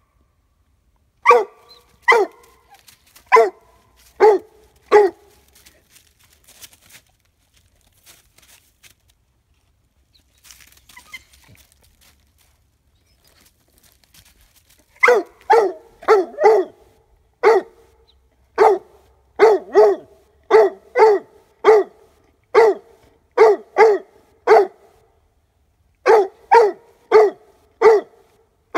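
Young Leopard Coonhound pup barking treed, head up at a squirrel hide in a tree: a string of short barks, the sign that it has the quarry treed. Five barks come at the start, then about ten seconds of pause, then steady barking at roughly one to two barks a second.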